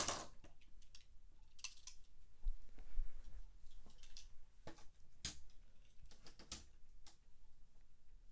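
Die-cast toy cars clicking and clinking as they are handled and set into the plastic starting gate of a Hot Wheels track: a scatter of light, separate clicks.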